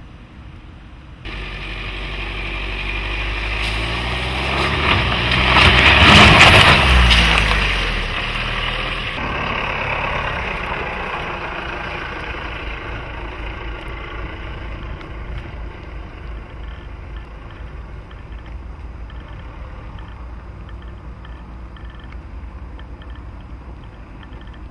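Jeep Renegade Trailhawk's 2.0 Multijet turbodiesel engine as the SUV drives past close by over rough ground. It grows louder to a peak about six seconds in, with the engine note bending in pitch, then fades steadily as the vehicle drives away.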